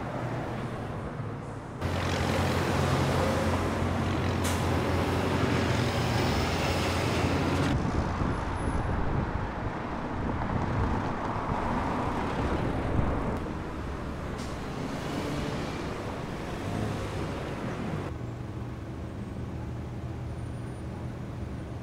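City street traffic: vehicles running and passing, with a large engine's hum at its loudest for several seconds early on and then easing off.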